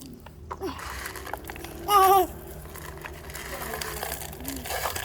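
A young child's short high-pitched vocal sound about two seconds in, over faint background noise.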